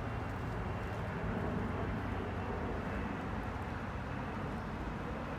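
Steady background rumble of distant traffic, even and unbroken.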